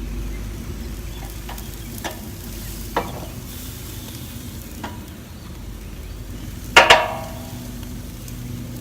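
Steaks sizzling on a charcoal grill, with a few light clicks of tongs on the grate and one loud metal clank with a short ring about seven seconds in.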